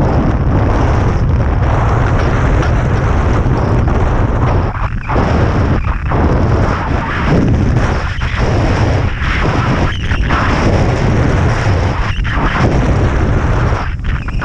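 Wind buffeting on the rider's camera microphone while kite landboarding: a loud, continuous rumble that dips and swells again every second or two.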